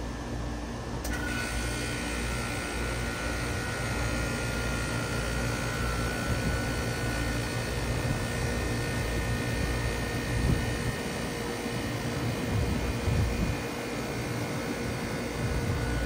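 Trane XB13 heat pump outdoor unit, with a Climatuff reciprocating compressor, starting up in cooling mode: over a low hum, about a second in it kicks on with a sudden rush of fan air and a steady high tone, then runs steadily.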